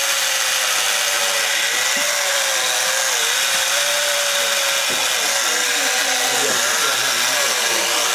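Chainsaw cutting into a block of ice, running at a steady pitch that dips briefly a few times as the blade bites, over a constant hiss.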